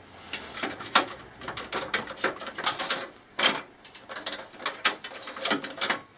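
Irregular clicks, taps and knocks of plastic and metal parts of a desktop PC case being handled, with a few sharper knocks about a second in and midway.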